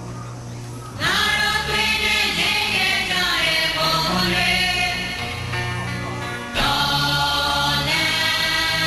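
Music: a group of voices singing in chorus over steady held low notes, with a new phrase entering loudly about a second in and another at about six and a half seconds.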